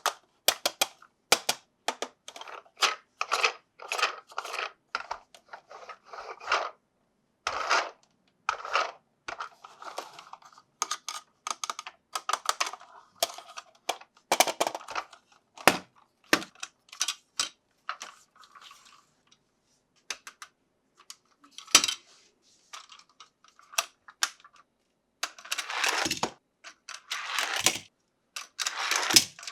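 Hard plastic toy parts being handled: a long run of short clicks, taps and clatters, with a few longer rustling bursts near the end.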